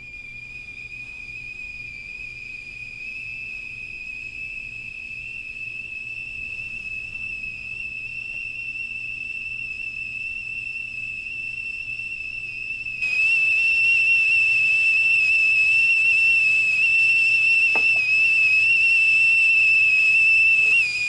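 Stovetop kettle whistling at the boil: one steady high whistle that grows louder and steps up sharply about two-thirds of the way through, then breaks off at the very end.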